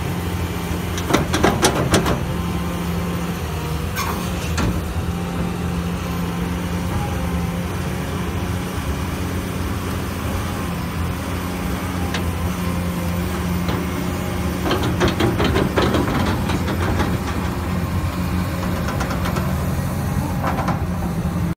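Caterpillar 320E excavator's diesel engine running steadily while the machine crawls through deep mud, with several short bursts of metallic clanking from the undercarriage or bucket, about a second in, at four seconds and again around fifteen seconds in.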